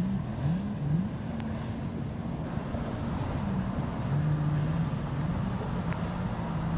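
Low, wavering drone of a motor yacht's engines as it cruises slowly through the marina channel, with wind buffeting the microphone.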